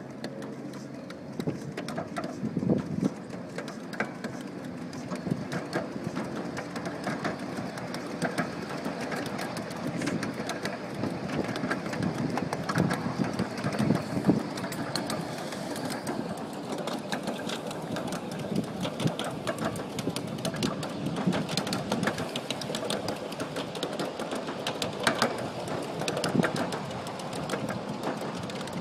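Ride-on miniature live-steam train running along its track, with a steady, fast rhythmic clatter from the locomotive and riding cars on the rails.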